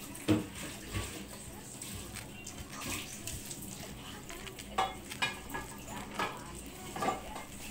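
Rice and herb stuffing being stirred in a large stainless steel bowl, with scattered clinks and knocks of utensils and dishes against metal, a few sharper strikes about five and seven seconds in.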